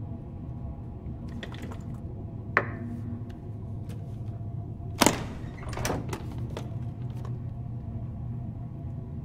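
Aluminium briefcase being opened: a few light clicks, a sharp snap about two and a half seconds in, then the loudest clack about five seconds in as a latch springs open, followed by several smaller clicks. A low steady drone runs underneath.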